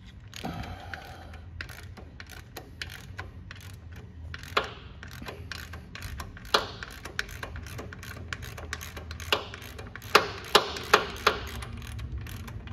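Hand ratchet and socket clicking and tapping on metal as a brake caliper mounting bolt is turned in: scattered sharp metallic clicks, then four in quick succession near the end.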